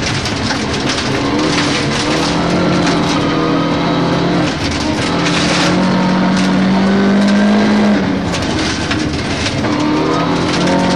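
Rally car engine under hard acceleration, heard from inside the cabin, its revs climbing and dropping back briefly about four and a half seconds in and again about eight seconds in before climbing again. Gravel crunches and patters under the car on a loose gravel stage.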